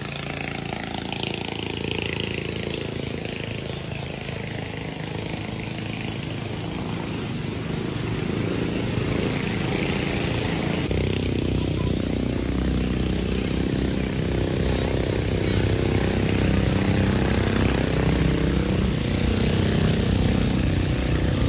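A motor engine running continuously, its pitch wavering and growing gradually louder over the second half.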